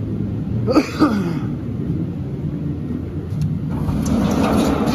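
Dodge truck's engine running with a steady low rumble. A short voice-like sound comes about a second in, and a louder rushing noise joins from about four seconds in.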